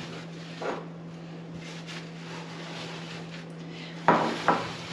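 Scraper working through dried baking-soda-and-vinegar oven cleaner on an oven's inside walls, faint scraping over a steady low hum, with a louder scrape about four seconds in.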